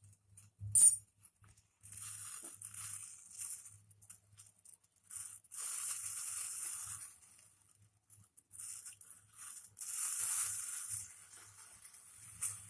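A small pot of herbal leaf decoction bubbling and hissing on the stove in spells of a second or two; it has boiled down well and is nearly done. One sharp knock about a second in.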